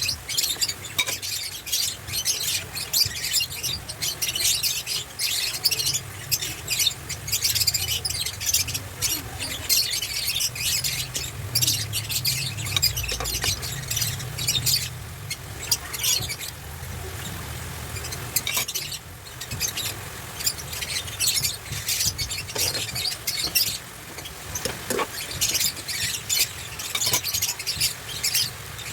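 Food frying in hot oil in a pan: a steady sizzle with dense, irregular crackling and spitting, easing to a smoother hiss for a moment partway through.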